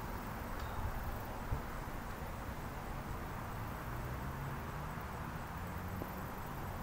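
Steady outdoor ambience of a residential street: an even hiss with a low rumble beneath it.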